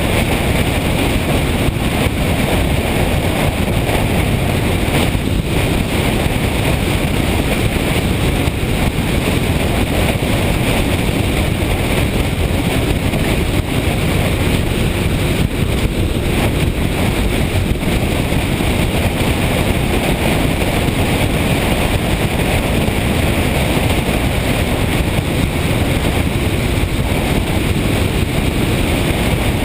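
Motorcycle on the move: steady wind noise over the microphone with engine and road noise beneath, unchanging throughout.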